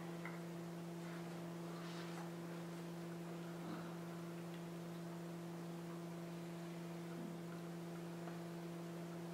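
Steady electrical hum made of two low, even tones, with a few faint scattered clicks.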